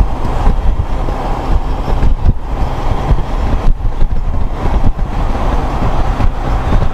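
Honda Gold Wing motorcycle cruising at highway speed: a loud, fluctuating rush of wind buffeting the microphone over a low rumble of engine and road noise.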